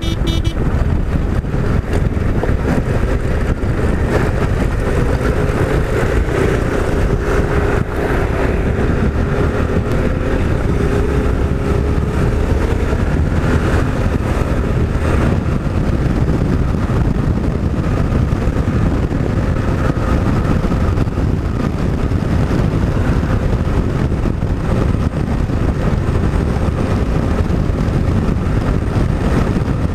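Off-road motorcycle engine running steadily under way, its pitch wavering slightly with the throttle, over a heavy low rumble of wind and road noise.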